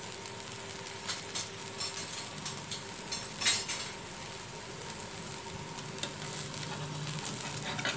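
Wheat adai dosa sizzling steadily in oil on a hot dosa tawa, with a few light clicks, the loudest about three and a half seconds in.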